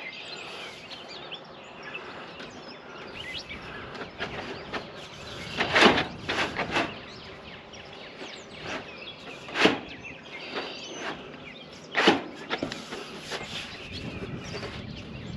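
Sheet-metal rake flashing being handled and set against the metal roof panels, giving several sharp metallic knocks and rattles, the loudest about six, ten and twelve seconds in. Birds chirp in the background.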